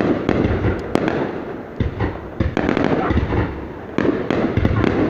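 Fireworks display going off: a rapid run of bangs and crackles, several a second, over a continuous low rumble of bursts.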